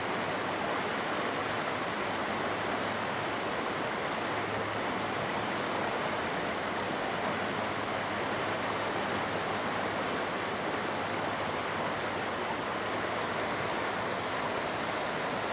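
Steady rushing of river water, an even unbroken wash of noise.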